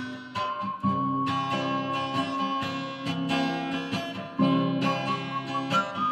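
A person whistling a song's melody in long held notes, with a wavering vibrato on one of them, over strummed acoustic guitar accompaniment.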